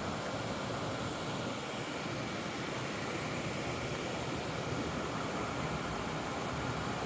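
Steady rush of stream water flowing down to the waterfalls, an even noise that doesn't change.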